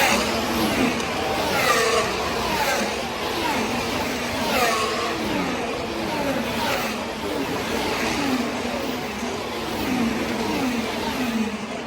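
Formula 1 cars' V6 turbo hybrid engines passing one after another at high speed, each engine note falling in pitch as it goes by, a new car roughly every second.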